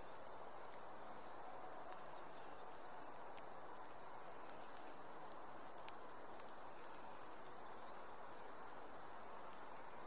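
Steady outdoor background hiss with faint, brief high bird chirps scattered through, mostly in the second half.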